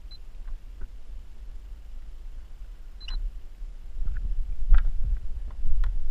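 Low rumble of handling and water noise on a camera mounted on a boat, with scattered small knocks and clicks and two brief high beeps. It grows louder about four seconds in as the camera is moved.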